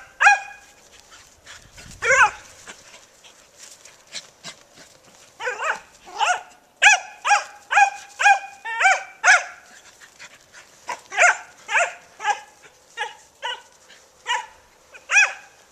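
Dogs barking in play: a couple of barks at the start, then runs of repeated barks at about two a second, with a short pause in the middle.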